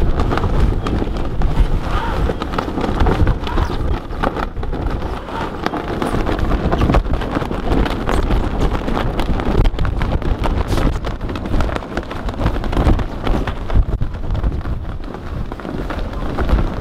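Steady wind buffeting the microphone, a continuous low rumble, with a few sharp knocks scattered through it.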